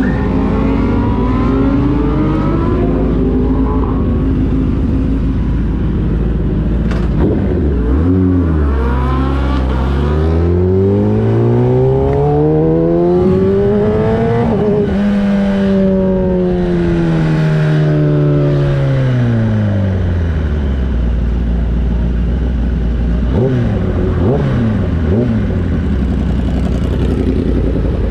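Sport motorcycle engine running and revving: a steady note that drops about seven seconds in, then climbs smoothly in pitch to a peak about halfway through, falls slowly back to a low steady note, and gives a few short revs near the end.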